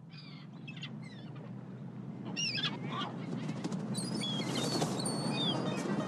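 Birds chirping in short, repeated calls over a low steady hum, growing gradually louder.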